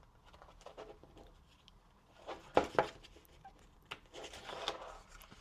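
Faint handling of a paper picture book as a page is turned: soft rustling with a few small taps, and one slightly louder sound about two and a half seconds in.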